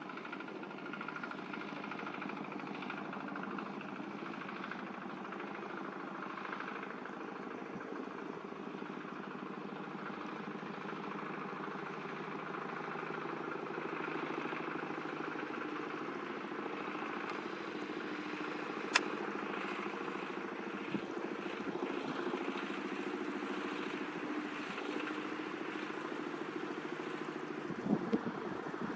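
Jet engines of an airliner on landing at Paro, heard from afar: a steady hum with several held tones, growing slightly louder. A sharp click about two-thirds of the way through and two short knocks near the end.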